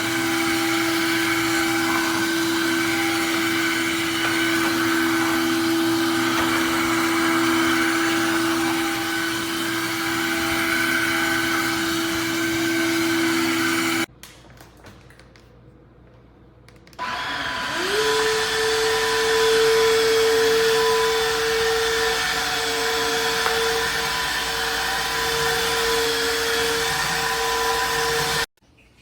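Tineco cordless wet-dry floor vacuum motor running with a steady whine. It cuts out about halfway, then starts again a few seconds later, rising to a higher steady pitch, and stops shortly before the end.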